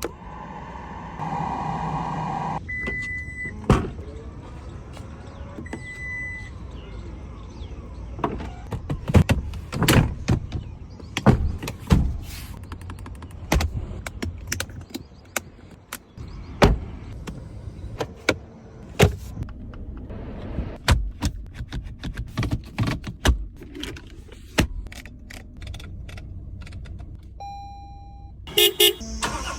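Toyota Land Cruiser body and cabin sounds: a power window motor hums briefly near the start, two short electronic beeps follow, then a long series of sharp clicks and clunks from doors, latches and switches, with another beep near the end.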